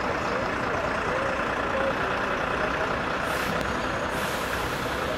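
Heavy diesel vehicle idling steadily, with a high hiss of air coming in about three seconds in and again near the end.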